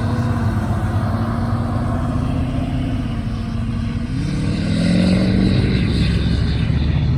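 A car engine running steadily, then accelerating about four seconds in, rising in pitch and getting louder as the car pulls away.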